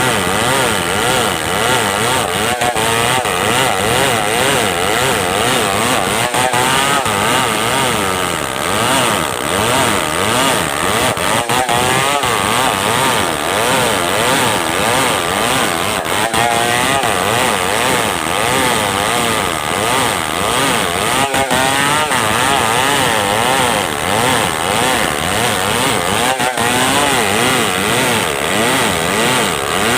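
Stihl 070 two-stroke chainsaw running hard and cutting wood, its engine pitch wavering up and down as the load changes.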